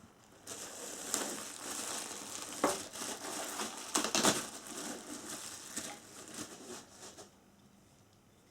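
Packaging being handled and crumpled: a continuous crinkling rustle with a few sharper crackles, stopping about a second before the end.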